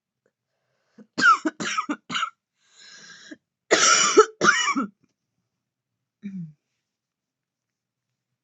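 A woman coughing in a fit brought on by vaping. There are four quick, sharp coughs about a second in, a faint breath, then two heavier coughs around four seconds.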